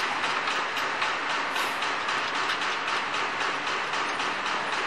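Machinery running with a steady rhythmic clatter, about four to five knocks a second, over a constant mechanical hiss.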